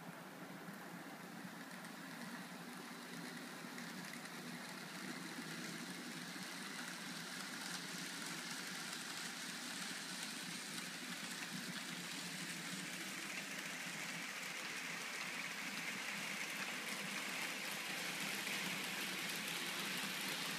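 Model freight train running along its track, the steady whir of the locomotive's motor and the rolling of its wheels growing gradually louder as it comes nearer.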